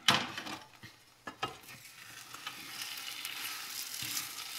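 A few sharp knocks at the start, the first the loudest, then scrambled egg frying in butter in a nonstick pan and being stirred with a spatula, a sizzle that builds from about halfway.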